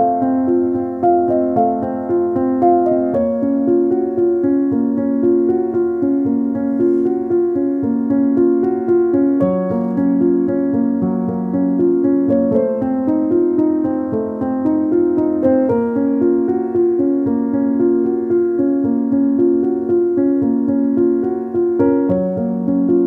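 Background piano music, with chords that change about every second.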